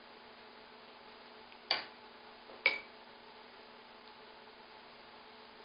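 Two light clinks of a metal utensil against a cooking pot, about a second apart, the second ringing briefly, over a faint steady hum.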